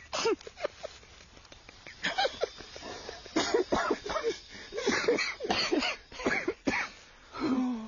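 Wheezing, cough-like laughter from several voices in a dozen or so short bursts with gaps between them, growing busier about halfway through, with one longer burst near the end.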